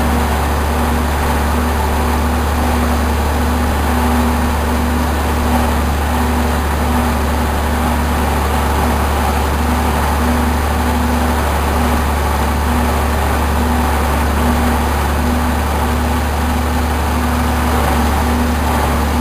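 The engine of a 1961 Case 930 tractor running steadily as the tractor drives along, heard from the driver's seat close to the upright exhaust stack: a constant low drone with an even level.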